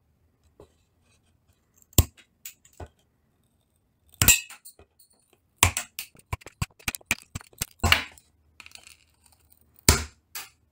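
Diagonal cutters snipping through bamboo skewers: sharp snaps every second or two, with lighter clicks and ticks in between.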